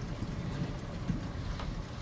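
Steady rain ambience with a heavy low rumble and a few faint drop ticks.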